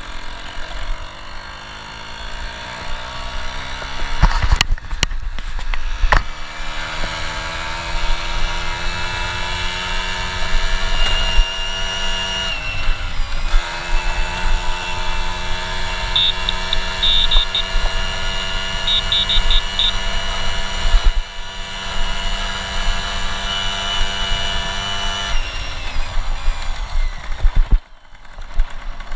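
Polini-tuned Piaggio Ciao moped's single-cylinder two-stroke engine under riding load. Its pitch climbs steadily as it gathers speed, dips briefly about halfway, then holds high. It falls off near the end as the throttle is closed. A couple of sharp knocks come a few seconds in.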